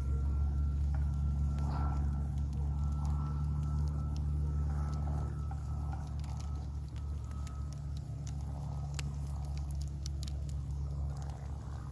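Wood fire of burning logs and glowing embers crackling, with scattered sharp pops over a steady low rumble. A faint thin whistle runs through the first half.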